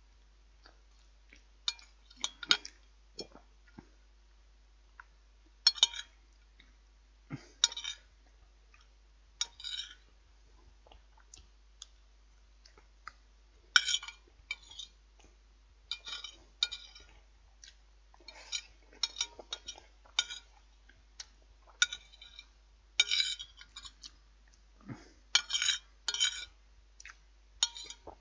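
Cutlery clinking and scraping against a plate in short, irregular strokes, typical of eating a meal with knife and fork.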